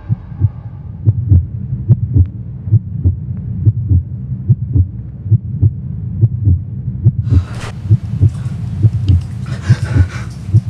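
Heartbeat sound effect: a steady run of deep, low thumps, often in pairs. A rushing, hissing noise comes in over it about seven seconds in.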